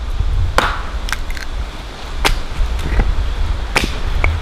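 Hatchet chopping a small piece of cherry wood on a stump into smoker chips: three sharp chops about a second and a half apart, with lighter knocks between, over a steady low rumble.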